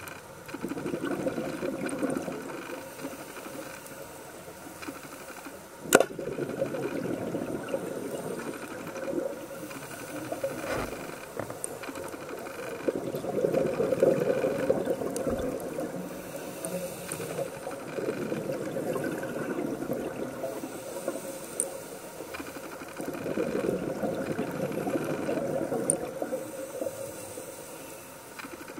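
Scuba regulator exhaust bubbles heard underwater, a crackling burst every several seconds as a diver breathes out. One sharp click about six seconds in.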